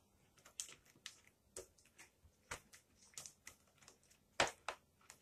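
Light, irregular plastic clicks and taps as a plastic canvas sheet is handled and pressed against a plastic dehydrator tray, about a dozen in all, the loudest about four and a half seconds in.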